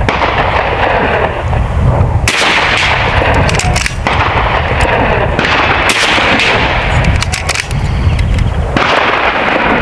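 Heavy wind buffeting on the microphone: a constant loud rumble and hiss that changes abruptly several times.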